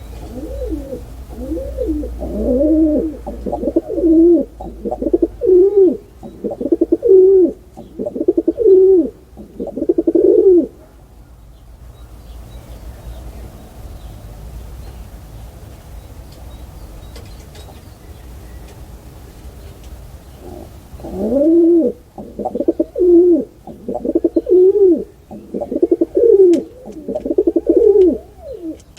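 Pigeon cooing: a run of repeated rising-and-falling coos for about ten seconds, a pause of about ten seconds, then another run of coos near the end.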